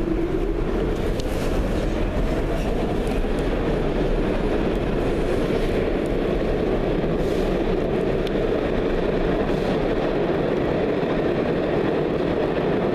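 New York City subway train running through a tunnel, heard from inside the car: a loud, steady rumble of wheels on rail with a whine that rises in pitch in the first second, then holds.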